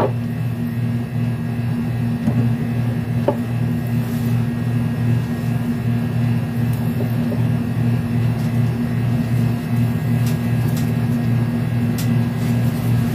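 A steady low mechanical hum from a running motor, with a slight regular pulsing and a few faint clicks over it.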